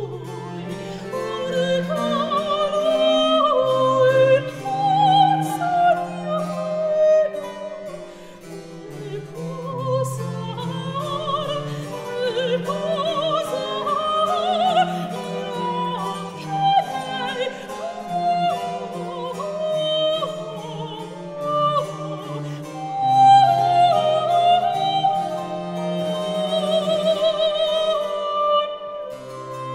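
Classical background music: a singing voice holding notes with vibrato over a plucked keyboard-like accompaniment and a bass line.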